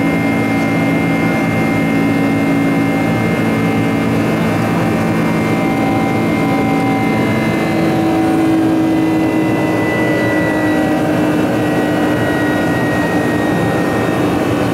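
Boeing 747-400's turbofan engines heard from inside the cabin during the climb after takeoff: a steady jet roar with humming engine tones, one of which shifts up slightly in pitch about halfway through.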